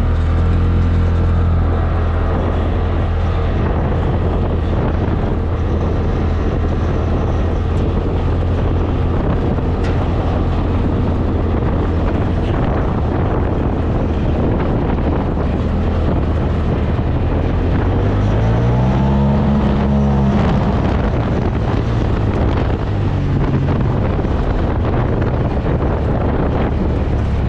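Polaris RZR Turbo XP4's turbocharged twin-cylinder engine running at high revs as the side-by-side accelerates in low range, geared down by a fitted transmission gear reduction. The engine note stays steady, with a brief rise and fall in pitch about two-thirds of the way through.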